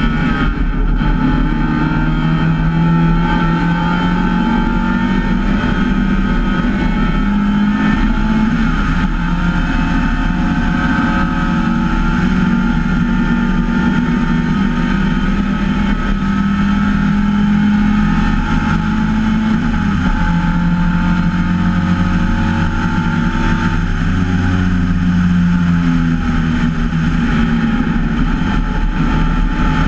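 An MGA race car's engine at racing speed, heard from the open cockpit. Its pitch climbs under acceleration and drops as the driver lifts and shifts through the corners, over a steady low rumble of wind and road noise.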